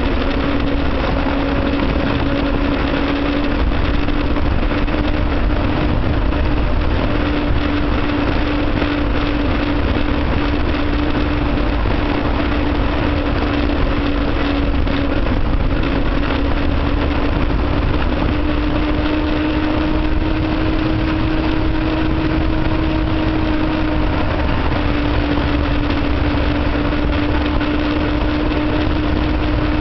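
Motorcycle engine running at a steady cruise on the open road, its note holding nearly constant and rising slightly about two-thirds of the way through, under a continuous rush of wind and road noise.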